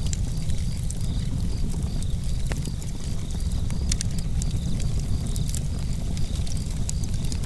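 Campfire crackling with scattered sharp pops over a steady low rumble of breeze and flames. Crickets chirp in an even rhythm behind it.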